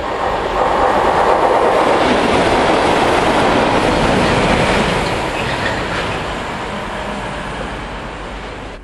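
DRS Class 37 diesel locomotives, with English Electric V12 engines, passing through a station hauling a nuclear flask train, with engine and wheel noise on the rails. It is loudest in the first five seconds as the locomotive passes, then fades as the train moves away.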